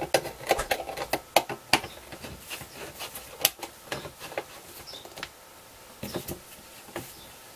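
Irregular light metal clicks and taps from a hex screwdriver and pliers on a small bolt and nut being tightened on a metal bracket.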